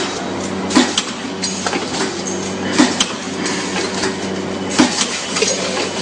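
Automatic microwave-popcorn bag packing machine running: a steady hum with a sharp clack about every two seconds as it cycles, and lighter clicks in between.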